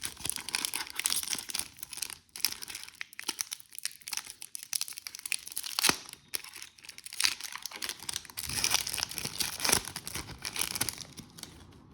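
A trading card pack's wrapper being torn open and crinkled by hand, an irregular crackling with sharp clicks throughout.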